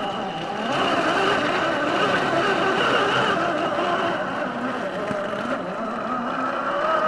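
1/10-scale RC crawler's brushed 540 electric motor and gearbox whining as it drives, the pitch rising and falling with the throttle. It gets louder about a second in.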